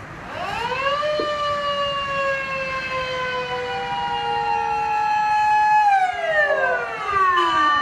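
Fire engine siren sounding a long wail: the pitch rises over about a second, slides slowly down, then falls away steeply near the end. A second siren tone swells up underneath it in the middle, and a new siren tone starts just before the end.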